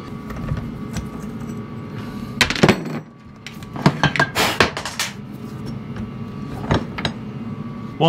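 Metal car parts, water pumps among them, being handled and set down on a workbench: a few sharp clunks and clinks, loudest about two and a half seconds in and again around four seconds.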